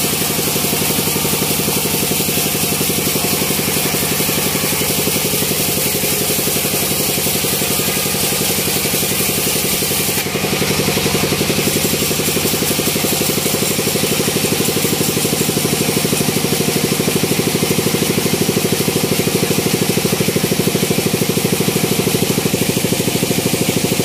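Band sawmill running steadily as it saws a teak log into boards, a continuous machine drone that gets slightly louder about ten seconds in.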